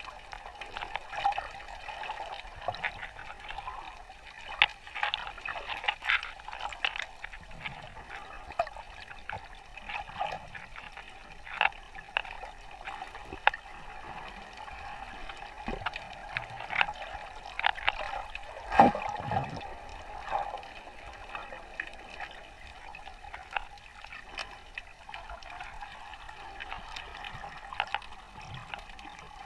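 Water heard while snorkeling: irregular crackling clicks and gurgling over a steady hum, with a louder sloshing burst about two-thirds of the way through.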